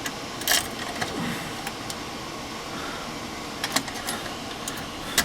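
A few sharp clicks and knocks as a fire alarm pull station is handled and tripped, the loudest about half a second in, over a steady background hiss. No horn sounds: the panel is in silent walk test mode.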